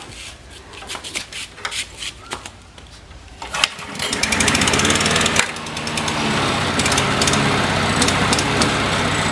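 Petrol walk-behind lawn mower being pull-started: a few light clicks and knocks, then the cord pull about three and a half seconds in, and the small engine starts and runs loud and steady.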